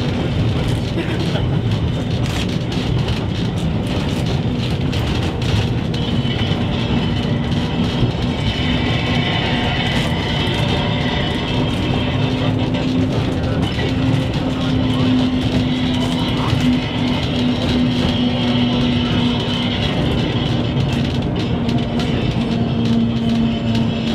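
Snaefell Mountain Railway electric tramcar running on its rails, heard from inside the cab: a steady running rumble with a low drone and scattered clicks. A higher-pitched whine or squeal comes in about a third of the way through and again later.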